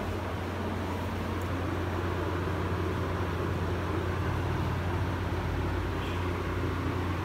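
Steady low hum with an even hiss: room background noise, with no distinct event.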